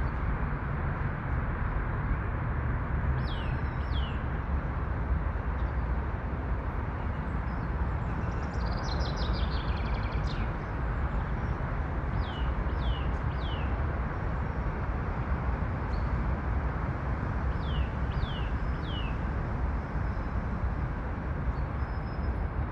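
Wild songbirds singing: groups of two or three quick whistled notes that fall in pitch, repeated several times, and a short trill about nine seconds in. They sing over a steady, loud background rush of noise.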